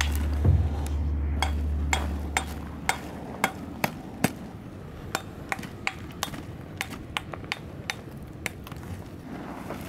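A metal tool striking rock: irregular sharp knocks and taps, one or two a second. A low rumble underneath dies away after about three seconds.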